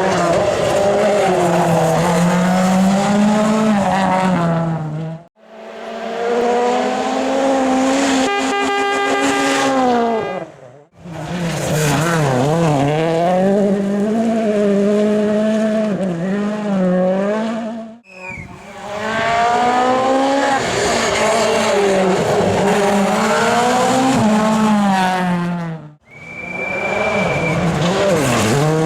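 Rally cars driven hard on a special stage, engines revving up and down through gear changes, heard in a run of five short clips with abrupt cuts between them.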